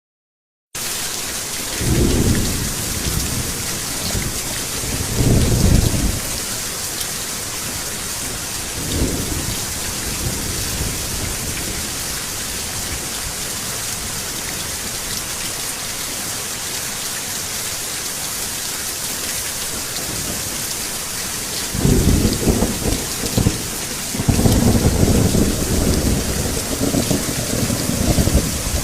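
Thunderstorm: steady rain with rolling rumbles of thunder. The rain starts suddenly just under a second in; thunder rumbles about 2, 5 and 9 seconds in, then rolls on longer from about 22 seconds in.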